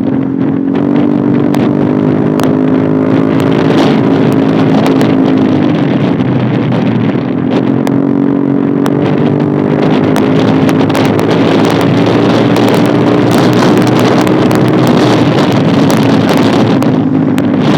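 Single-cylinder engine of a Yamaha Aerox 155 scooter running loud through an Eternal aftermarket racing exhaust while riding at high revs, with a brief dip in revs about six seconds in before it climbs back. Scattered popping crackles come from the exhaust.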